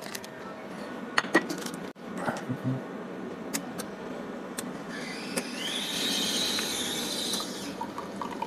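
Fully automatic bean-to-cup coffee machine starting a latte macchiato: a few clicks as a ceramic cup is set on the drip grate and the touchscreen is worked, then the machine's motor whine rises and holds steady for about two seconds.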